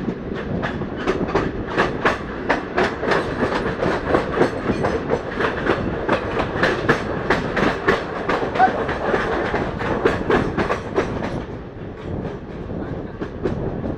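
Indian Railways passenger train running at speed, heard from an open coach doorway: a steady rushing rumble with the wheels clicking rapidly over the rail joints. The clatter fades for a moment near the end, then picks up again.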